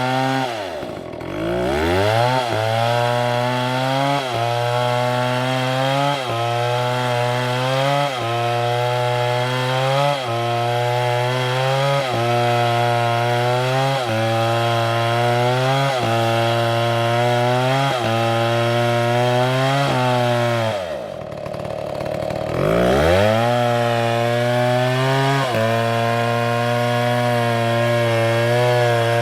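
Two-stroke chainsaw running at high revs, cutting into oak. The engine speed sags slightly about every two seconds under the cut, and twice, about a second in and about two-thirds of the way through, falls away sharply and revs back up.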